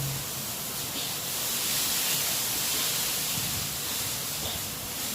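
Steady hiss of background noise, even throughout and strongest in the high range, with no distinct event in it.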